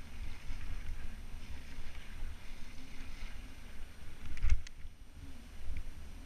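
Wind buffeting the microphone of a helmet camera on a mountain bike rolling over snow, a steady low rumble. About four and a half seconds in there is a single sharp knock, the loudest moment.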